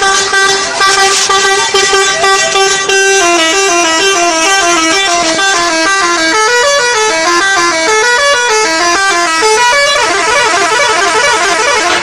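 Indonesian 'telolet' bus horn, a multi-tone musical horn, holding one long note for about three seconds, then playing a quick up-and-down tune of short notes; about ten seconds in it switches to a faster pattern.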